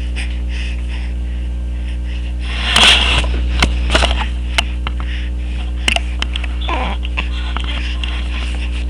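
A baby sneezes once, a short noisy burst about three seconds in, followed by a few small clicks and a brief sound falling in pitch. A steady low electrical hum runs underneath.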